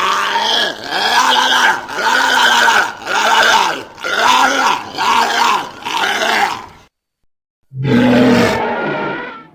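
Walrus-dog creature sound effects: a string of pitched, growly calls, each rising and then falling in pitch, about one a second. After a short break about seven seconds in comes one more call, lower and held longer.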